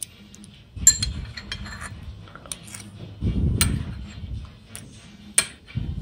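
Cutlery clinking against a plate while eating: about seven sharp clinks at irregular intervals, with low dull handling sounds between them.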